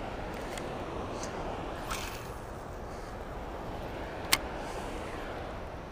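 Steady outdoor background noise with a few faint clicks and one sharp click a little past four seconds in, from handling a fishing rod and reel.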